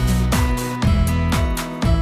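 Background music with a steady beat, strummed guitar and a bass line.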